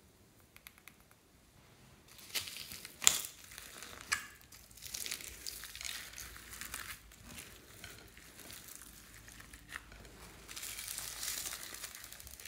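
Clear slime loaded with foam beads, glitter and sequins being squeezed and kneaded by hand: uneven sticky crackling and crinkling that starts about two seconds in, with a sharp click about three seconds in.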